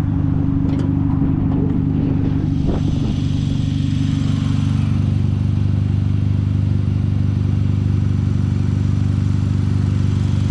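2010 Hyundai Genesis Coupe's turbocharged four-cylinder engine idling steadily, with a few light clicks in the first few seconds.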